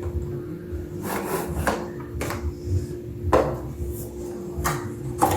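Vinyl floor planks being shifted and knocked into place on the floor: about six irregular knocks and scrapes over a steady low hum.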